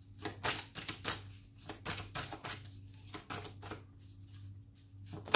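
A deck of oracle cards being shuffled and handled by hand: a quick run of card slaps and flicks that thins out after about four seconds, then one louder tap near the end.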